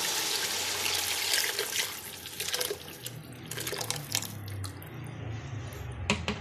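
A thin besan-and-yogurt mixture pouring in a stream into masala in a steel pot, a steady liquid pour that thins out about two seconds in. A couple of clicks near the end.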